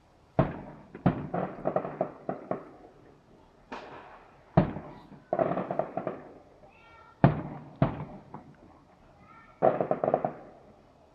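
Fireworks going off: sharp bangs of bursting shells starting about half a second in, several followed by quick runs of crackling pops, in clusters every couple of seconds.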